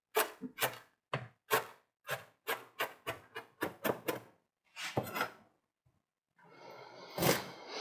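Chef's knife chopping fresh dill finely on a cutting board: quick sharp knocks of the blade on the board, about four a second, slowing and stopping after about five seconds. Near the end a short scraping rub as the knife gathers the chopped dill into a pile.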